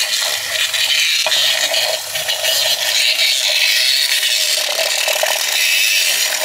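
Handheld battery milk frother whirring steadily as it whisks matcha in a glass measuring cup.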